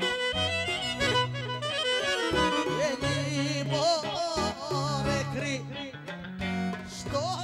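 Live Greek folk dance music from a band: clarinet leading an ornamented, wavering melody over a steady bass line and accompaniment.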